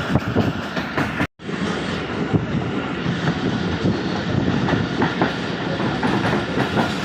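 Moving passenger train: wheels clattering over the rail joints amid a steady rumble of running noise. The sound cuts out for an instant about a second in.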